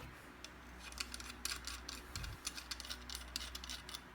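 Faint, light clicking and clinking of small stainless steel faucet parts, a Neoperl aerator and an anti-backflow connector, being handled. The clicks come in a quick, irregular run from about a second in.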